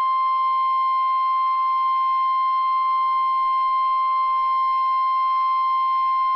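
NOAA Weather Radio warning alarm tone: a single loud, steady 1050 Hz tone held without a break. It is the attention signal that announces a warning, here a severe thunderstorm warning, and is played from a weather radio receiver.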